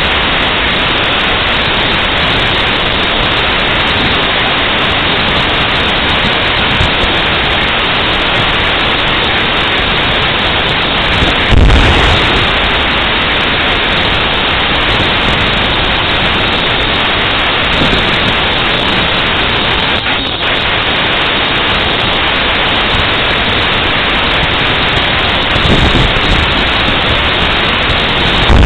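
M1A1 Abrams tank's 120 mm main gun firing, a deep boom about twelve seconds in and another at the very end, over a steady loud rushing noise.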